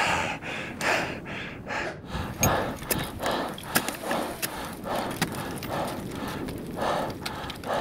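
A climber panting hard, about two breaths a second, while climbing steep snow and ice. Occasional sharp clicks come from ice axes and crampons biting into the snow and ice.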